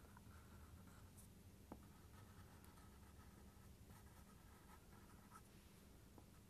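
Faint scratching of a drawing tool on paper, in short intermittent strokes as coal is sketched in, over a low steady hum, with a small tick about two seconds in.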